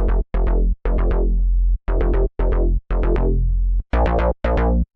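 Serum software-synth bass patch played as a short rhythmic bass line: about eight separate notes with a deep sub-oscillator low end and a throaty, growly top that dies away faster than the bass on each note.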